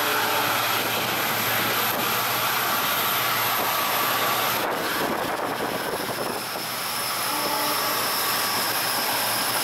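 A passenger train running along the track, heard from an open window: a steady rush of wheel and wind noise, dipping briefly about six seconds in.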